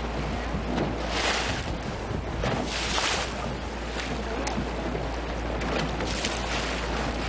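Wind blowing across the microphone over sea waves washing and surf breaking on rocks, heard from aboard a small open boat. The hiss swells in gusts about a second in and again around three seconds in.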